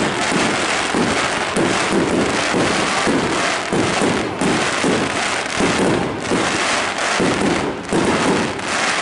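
Fireworks display: aerial shells bursting in a dense, continuous barrage of overlapping bangs and crackling, with white crackling stars.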